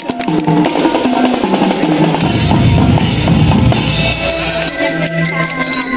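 Marching band playing: held brass notes over the drum line, with the bass drums and snares building to a loud passage about two seconds in.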